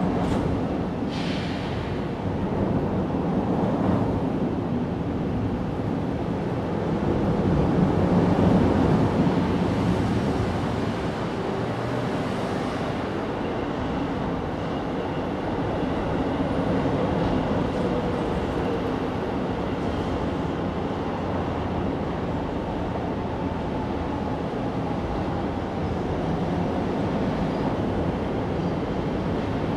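Steady low background rumble. It swells around eight seconds in, and a faint, slowly falling whine passes near the middle.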